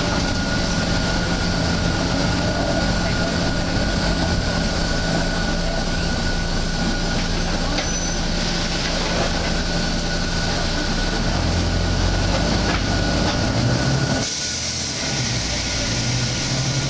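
Volvo B9TL double-decker bus running, heard from on board: diesel engine and road noise with a steady whine. About fourteen seconds in, the engine sound drops and a hiss of air comes in for a few seconds.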